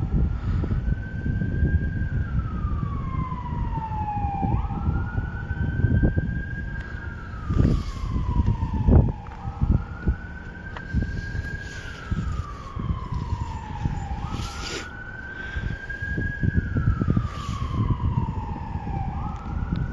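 A siren wailing in slow cycles. Each time its pitch jumps up quickly and then slides slowly down, about once every five seconds. A loud low rumble runs underneath.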